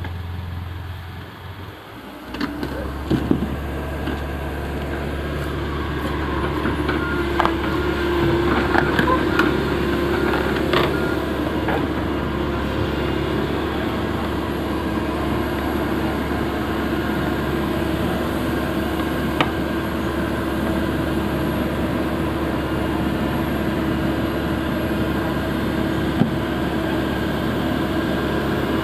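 Komatsu excavator's diesel engine running steadily while it digs, with a few sharp clanks of the bucket and arm working.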